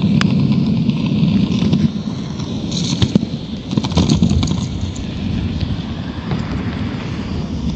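Skateboard wheels rolling over pavement: a steady rumble with sharp clicks here and there as the board crosses cracks, the rumble easing after about two seconds.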